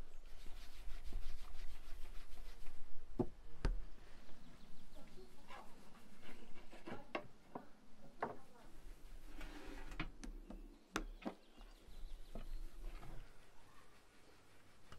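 Food being handled on a wooden table: soft rubbing of hands working dough and chicken, with scattered light knocks and clicks and one sharper knock about three and a half seconds in.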